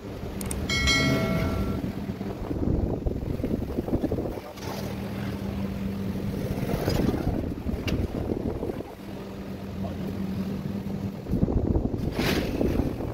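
Wind buffeting the microphone over the small side-cover bolts of an e-bike hub motor being unscrewed. There is a short metallic ring about a second in and a few light metal clicks later on.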